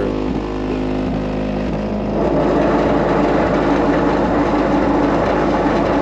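Homemade oversized subwoofer built into a school bus's front bumper guard, playing a loud, steady, very deep bass rumble. It gets louder about two seconds in and cuts off suddenly at the end.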